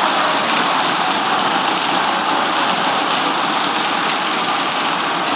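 Large audience in a hall applauding steadily.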